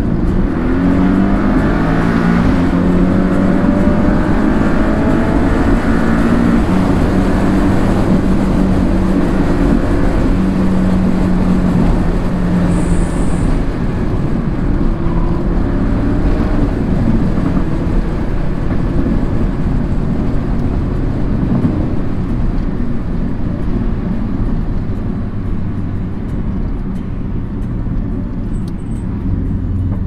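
Porsche sports car's engine and road noise heard from inside the cabin while being driven hard, the engine note climbing in pitch over the first few seconds as it accelerates, then pulling steadily.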